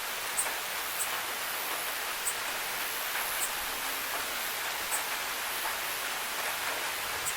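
Steady rain falling, a even hiss, with a few sharp, high ticks scattered at irregular intervals about a second or more apart.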